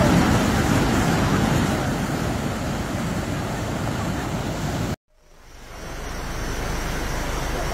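Steady rushing outdoor noise on a phone microphone, cutting to silence for a moment about five seconds in and then fading back in.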